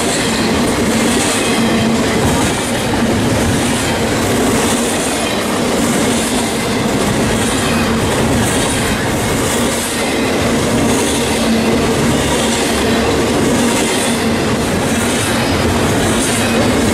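Double-stack intermodal freight train's well cars rolling past: a loud, steady rumble of steel wheels on rail, with a high hiss that swells and fades a little under once a second.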